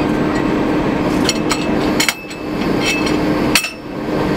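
Several sharp metallic clinks and knocks at the coupling between a diesel locomotive and an electric train, over a steady loud machinery hum.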